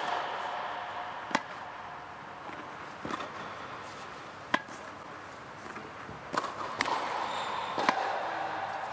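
Tennis balls struck with a racket and bouncing on a hard court during a fed backhand drill: about six sharp, separate pops a second or more apart, the loudest about a second and a half in and again about four and a half seconds in, over a steady background hum.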